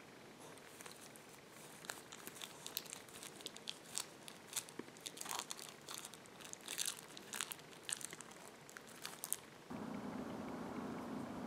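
Rottweiler × Rhodesian Ridgeback puppy chewing a plastic wrapper, with irregular crinkling and crackling. Near the end the sound cuts suddenly to steady outdoor background noise.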